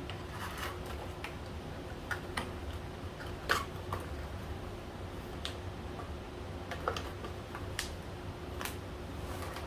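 Scattered light clicks and taps of packaging and small parts being handled while a keyboard-and-mouse combo is unboxed, the loudest about three and a half seconds in, over a faint steady hum.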